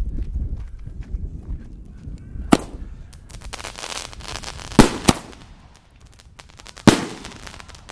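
Funke 38 mm comet-bomb single-shot fireworks going off: sharp bangs about two and a half, five (a quick pair) and seven seconds in, as the shells lift and burst, with crackling and hiss between them.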